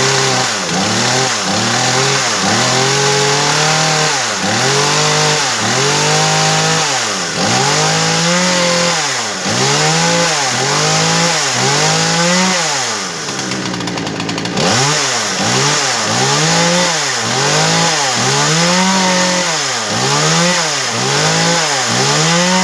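Husqvarna 240 two-stroke chainsaw engine revved in repeated throttle blips, about one a second, with a short dip in revs about two-thirds of the way through. The engine is still cold and runs rich and uneven, smoking as it is revved.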